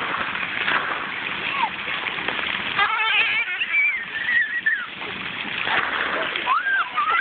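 Splash pad water jets spraying and splattering onto the wet pad, a steady hiss of falling water. High children's voices call out about three to five seconds in and again near the end.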